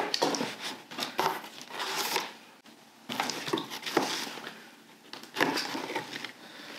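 Cardboard shipping box being opened with a small utility knife: tape slit, cardboard flaps pulled apart and paper packing rustling, in several irregular bursts.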